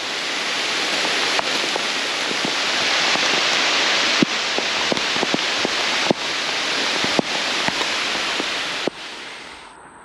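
Heavy rain pouring through a leafy forest canopy: a dense, loud hiss with many sharp taps of drops striking close by. Near the end the downpour sound drops away abruptly.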